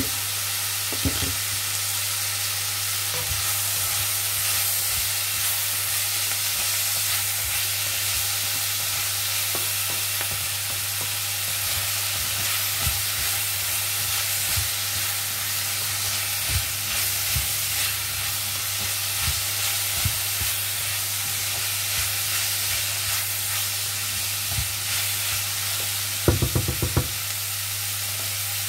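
Sliced cabbage, capsicum and carrot sizzling in hot oil in a non-stick pan while being stirred with a wooden spatula. The spatula knocks against the pan now and then, with a quick run of knocks near the end.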